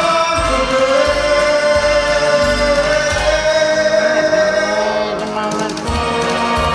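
Karaoke backing track playing: long held melody notes over a pulsing bass line, briefly dipping in level about five seconds in.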